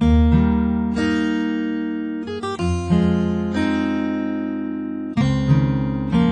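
Background music: acoustic guitar playing ringing chords, with a new chord struck about every two and a half seconds.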